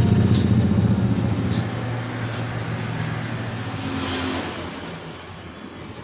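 A motor vehicle engine running close by, loudest at the start and fading away over several seconds.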